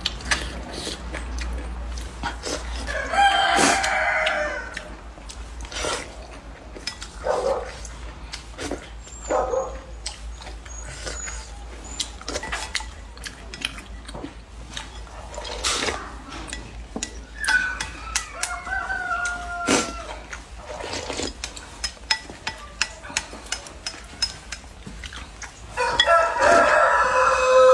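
A rooster crowing in the background three times: a few seconds in, around the middle, and loudest near the end, each call falling in pitch as it finishes. Between the crows come short clicks and slurps of eating noodle soup with chopsticks from a bowl.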